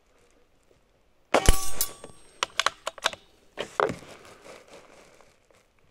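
A Benjamin Marauder PCP air rifle fires once about a second and a half in: a sharp thump followed by a short metallic ring, likely the pellet striking a steel target. Several light clicks of the bolt being cycled to load the next pellet follow, and a second sharp knock comes near the four-second mark.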